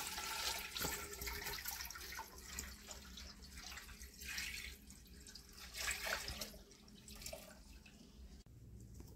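Cold water poured from an aluminium pot into the cooling pot on top of a homemade pot still, refilling the condenser so the distillate keeps cooling. The water splashes in a few surges and stops about two-thirds of the way through.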